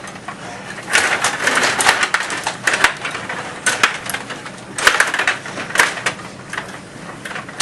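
Stiga table hockey game in play: the players' rods and plastic figures clack, rattle and knock together in quick irregular bursts.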